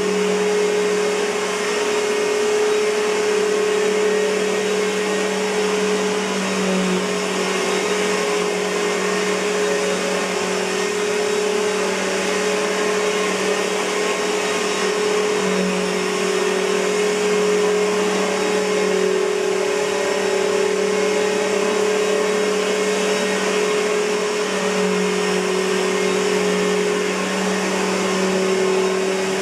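2007 Simplicity Symmetry upright vacuum cleaner with a Suzhou Kaihang motor running steadily: a constant motor hum over rushing air.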